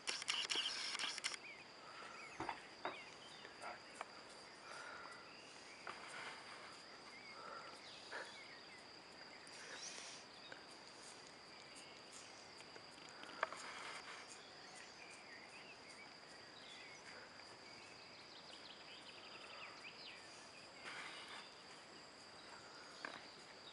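A cat licking an ice cream, giving faint scattered wet clicks of its tongue, over a steady high insect trill. A brief burst of noise comes in the first second.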